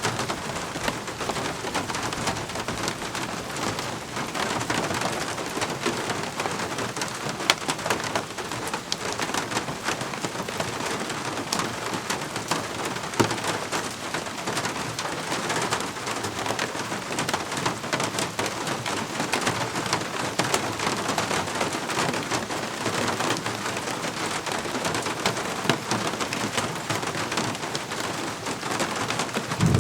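Steady rain falling, with dense hiss and the close, sharp ticks of individual drops hitting a surface.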